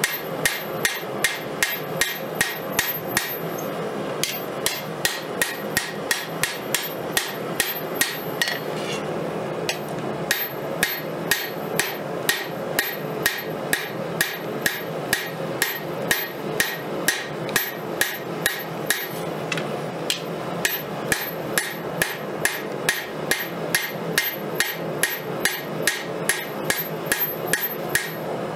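Hand hammer striking a red-hot steel blade on an anvil, hot-forging the khopesh blade into shape: steady blows about two a second, with a few short pauses, over a steady rushing noise.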